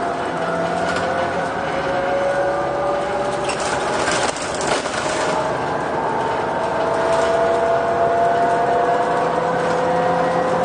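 Renault Agora L articulated city bus underway, its drivetrain whine climbing slowly in pitch. About four seconds in there is a brief clatter and the whine drops back, then it climbs again.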